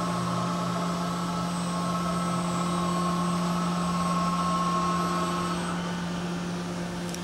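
Rotary table of a Kuraki KBT-11WA five-axis CNC horizontal boring mill turning under power: a steady machine hum with a higher whine over it that stops about five and a half seconds in.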